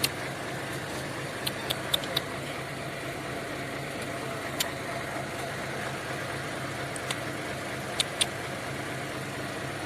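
Safari truck's engine idling steadily, with a few short sharp clicks scattered through.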